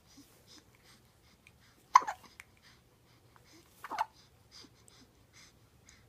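Hiccups, two short sharp ones about two seconds apart, near two seconds in and near four seconds in.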